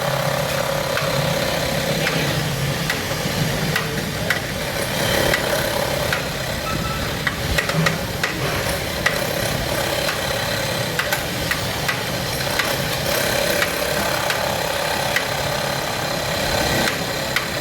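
Busy commercial kitchen noise: a steady machine-like drone with frequent short clinks and knocks of metal utensils and pots over it.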